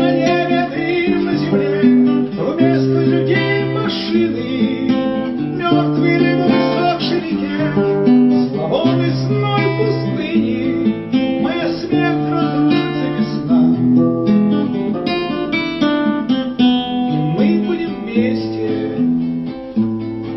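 Acoustic guitar playing an instrumental passage between sung lines, with notes plucked and strummed in quick succession.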